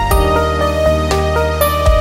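Background music: a gentle melody of clear pitched notes stepping every fraction of a second over a held low bass.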